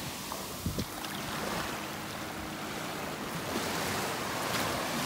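Small surf waves washing up over the sand at the water's edge, swelling a little louder near the end.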